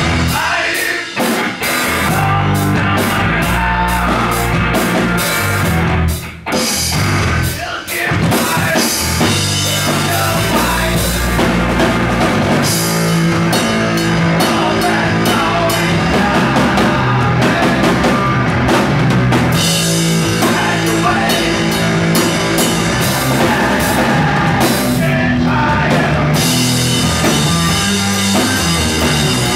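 Live rock band playing loud through amplifiers: electric guitar and drum kit, with a few short breaks in the first eight seconds before the full band plays on without stopping.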